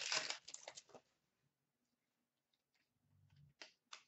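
A hockey card pack's foil wrapper crinkling as it is handled after being torn open, for about the first second. It is followed by two faint taps near the end.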